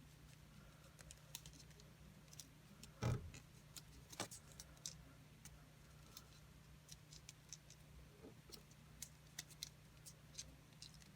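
Faint crinkles and small clicks of paper being folded and creased by hand into zigzags, with a louder knock about three seconds in. A steady low hum runs underneath.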